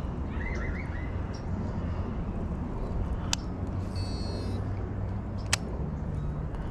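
Outdoor background of a steady low rumble, with a bird chirping briefly near the start and again around the middle, and two sharp clicks about two seconds apart.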